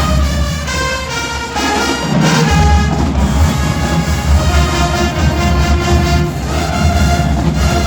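Marching band playing loud brass music with a heavy low-brass bass line. The bass drops out for about two seconds near the start, then comes back in.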